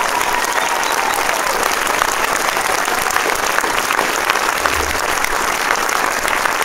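Large audience applauding steadily, a dense patter of many hands clapping.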